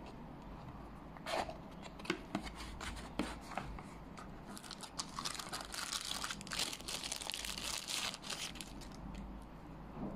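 A kraft cardboard box being opened by hand, with a few sharp knocks and scrapes, then a long stretch of crinkling from a clear plastic bag as a cable is pulled out of it.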